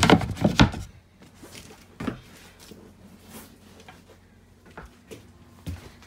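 Wooden hatch lid set back in place with a loud clatter, followed by a few light knocks over a faint steady low hum.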